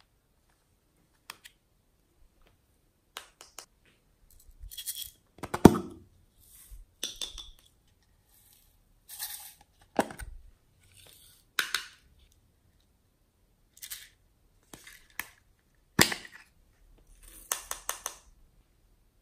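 Small plastic containers and lids being handled and opened by hand: a scattered series of sharp plastic clicks, knocks and short rustles, with the loudest knocks near the middle and again later.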